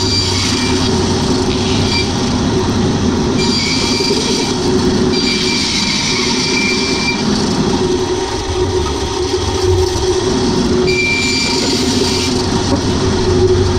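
Band saw running, its blade cutting through a block of colored pencils set in epoxy resin. A high whine comes and goes several times as the blade bites into the work.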